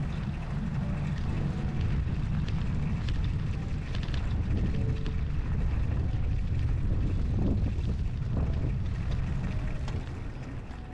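Strong snowstorm wind buffeting the microphone as a steady low rumble, with a few faint clicks scattered through it.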